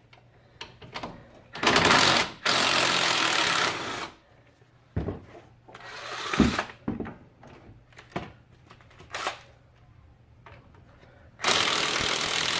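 Small cordless impact wrench running out loosened 13mm brake caliper bracket bolts, in a burst about two seconds in and another near the end, with metal tool clinks and clanks in between.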